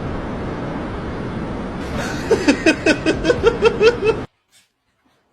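Quick run of about a dozen short pitched laughing sounds, around six a second, over a steady hiss; it all cuts off abruptly about four seconds in.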